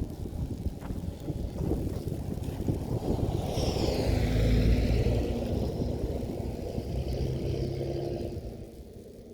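A vehicle passing by on the highway, its noise swelling to its loudest about four to five seconds in, then fading away, with wind buffeting the microphone.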